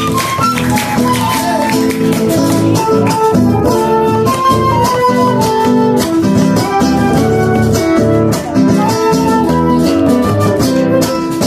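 Live Argentine folk music: strummed acoustic guitars and a bombo drum under a transverse-flute melody.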